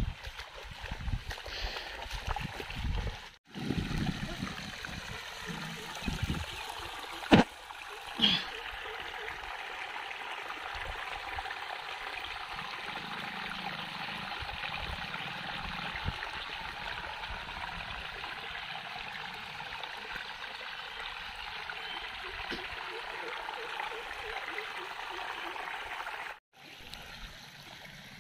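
Irrigation water trickling and gurgling steadily over a small earthen outlet into a flooded rice paddy, with two sharp knocks about seven and eight seconds in.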